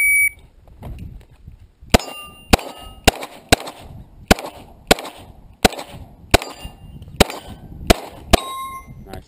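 Electronic shot timer's start beep, one short high tone, then a pistol fired about eleven times over some six seconds at steel plates. Several shots are followed by the brief ring of struck steel.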